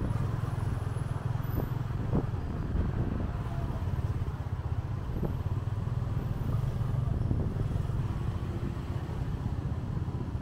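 Motorcycle running steadily on the move, a continuous low engine drone with road and traffic noise, and a few short knocks about two and five seconds in.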